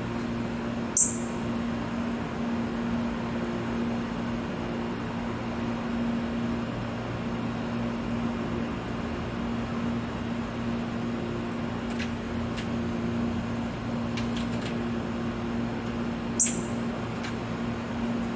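A steady low mechanical hum with two steady tones, and two sharp, very high bird chips, one about a second in and one near the end.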